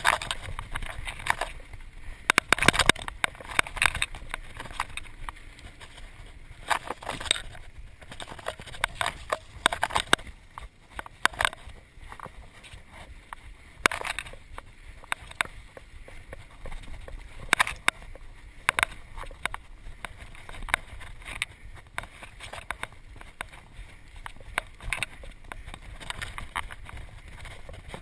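Mountain bike rolling fast over a dirt trail: a steady rumble from the tyres, broken by frequent sharp rattles and clacks from the bike as it hits bumps, some in quick clusters.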